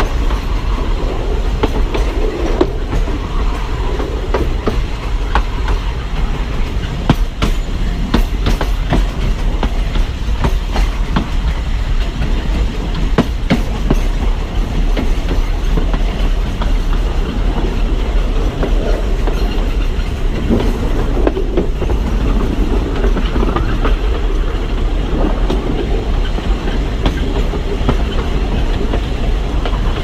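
Alishan Forest Railway narrow-gauge train hauled by a DL-41 diesel locomotive running along the track: a steady low rumble with irregular clicks of the wheels over the rail joints.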